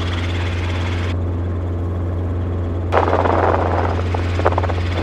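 Helicopter in flight heard from inside the cabin: the rotor and engine make a steady low drone. About three seconds in, a brief rush of noise lasts about a second.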